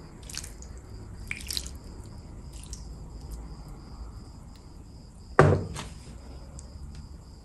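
Thick gravy poured from a small glass bowl over a plate of chicken, heard as faint wet drips and small clicks. Then a single louder knock about five and a half seconds in, as the glass bowl is set down on the wooden tray.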